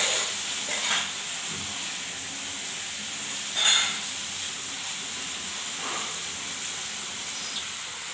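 Steady background hiss, with a short, louder rush of noise about three and a half seconds in.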